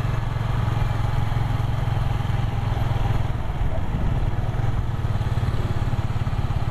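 Motorcycle engine running steadily at cruising speed, heard on board the moving bike as a constant low, rapidly pulsing drone with road and wind noise over it.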